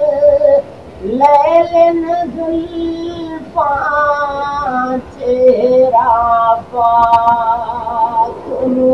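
A man singing a naat unaccompanied, in long held notes that waver and slide between phrases, with short breaths between them.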